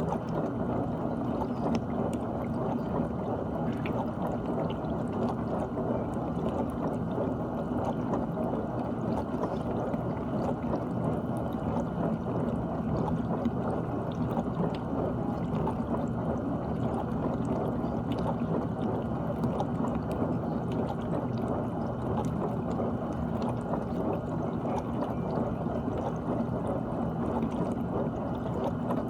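GE dishwasher running mid-cycle: water sprays and splashes steadily inside the tub over a steady hum.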